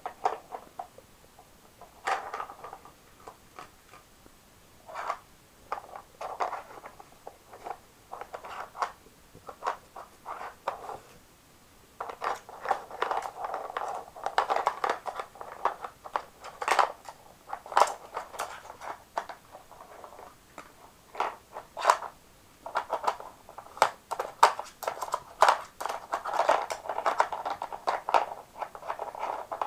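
A dog working a plastic treat-puzzle board with its nose, knocking and lifting out the hard plastic bone-shaped pegs: irregular bursts of plastic clicks, clatters and scraping, with short quiet gaps between.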